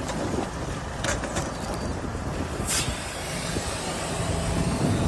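Steady low roar of a wildfire burning close by, with wind. A few sharp cracks come about a second in, and a brief hiss follows about a second later.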